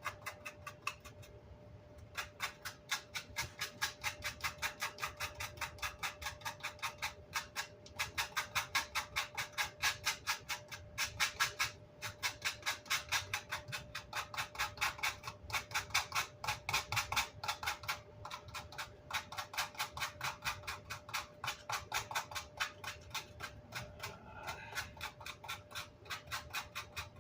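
Rapid back-and-forth brush strokes scrubbing a Vox AC30 grill cloth, about four a second, stopping briefly a few times. A faint steady tone runs underneath.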